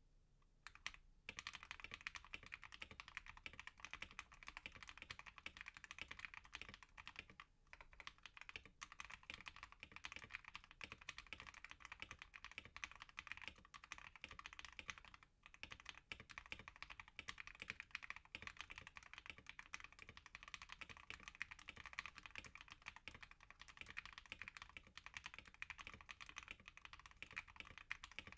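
Continuous fast typing on a DROP Expression Shinai mechanical keyboard fitted with lubed Akko Cream Yellow linear switches on an aluminium plate, with tape under the PCB: a dense run of key clacks with a few brief pauses.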